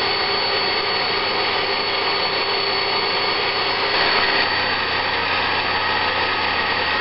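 Steady hiss of a small tank steam locomotive standing at rest with steam up, a few faint constant tones running through it.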